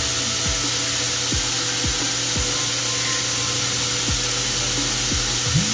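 Background music: a steady beat of low bass kicks that drop in pitch, about two a second, over a constant hiss.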